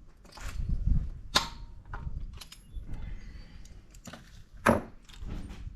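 Metal hand tools and engine parts being handled, with a few sharp metallic clinks and clicks at irregular intervals over low fumbling noise.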